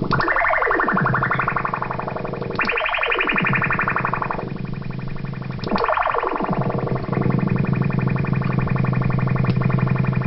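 Electronic sound effect from the WP20: a harsh, buzzing synthesized tone full of overtones that sweeps upward three times, about three seconds apart, then holds steady from about seven seconds in.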